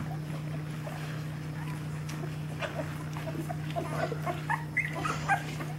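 Two-week-old nursing puppies squeaking and whimpering in short high peeps, which come more often in the second half, over a steady low hum.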